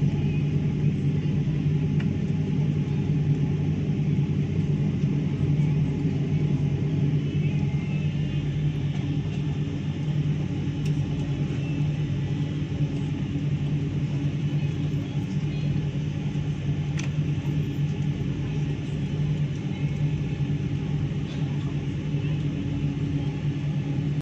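Steady low hum and rumble inside an airliner cabin on the ground, with a few faint clicks.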